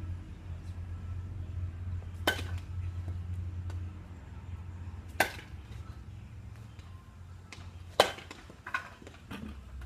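Baseball bat hitting soft-tossed balls: three sharp cracks about three seconds apart, with a fainter knock shortly after the last hit.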